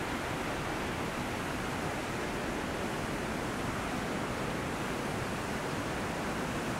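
Steady, even rush of a waterfall, with no separate sounds standing out.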